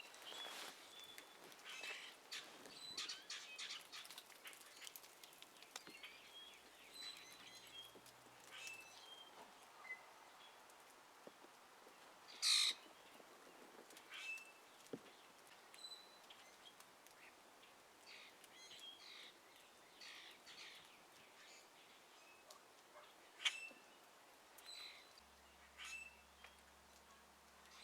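Wild birds chirping in short, scattered high calls, with a louder cawing call about twelve seconds in.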